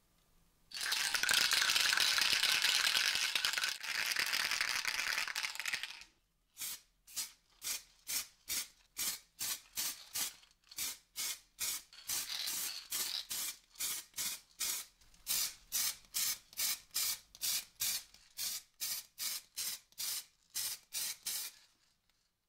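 Aerosol spray paint can hissing as black paint is sprayed onto a hammer head: one long continuous spray of about five seconds, then many quick short bursts, about two a second.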